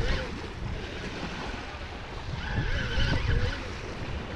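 Wind buffeting the microphone and lake waves washing against the shore, with a spinning reel being cranked steadily to bring in a hooked fish.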